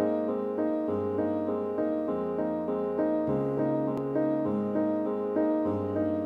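Background music led by piano: an even run of notes over low notes that change about once a second.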